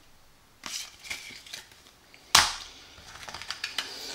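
Board game cards and cardboard being handled, with soft rustles and one sharp slap a little over halfway through, then light ticking and clicking as the pieces are moved.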